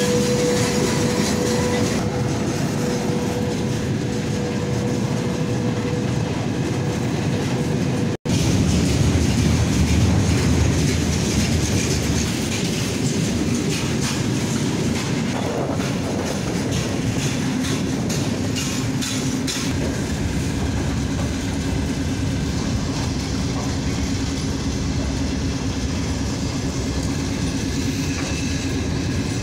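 Freight train wagons rolling past at close range, their wheels clattering over the rail joints. A steady whine runs over the rumble for the first eight seconds, and a lower one returns in the second half.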